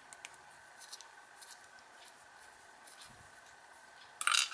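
Faint small metallic ticks and scrapes as a steel lock bible and hex key are handled, then a short burst of metal-on-metal clinking about four seconds in.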